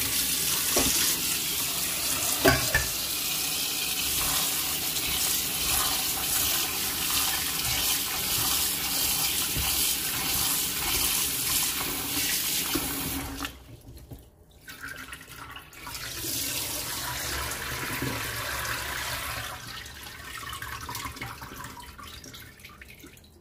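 Kitchen tap running into a stainless steel sink as bean sprouts are rinsed under it, with a knock or two early on. The water stops a little past halfway, then runs again more quietly and fades near the end.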